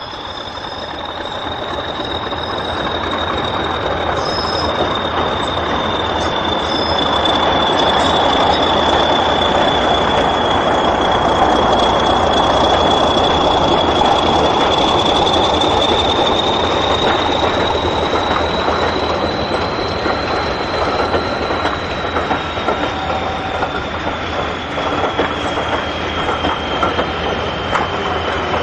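English Electric Class 40 diesel locomotive working a train, its turbocharger whistle wavering in pitch over the engine noise. The sound grows louder over the first several seconds. Wheel clatter over rail joints comes in near the end.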